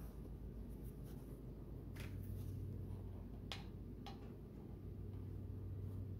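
A steady low electrical hum, with a few faint clicks and taps as a gloved hand sets the MIG welding gun against the patch plate.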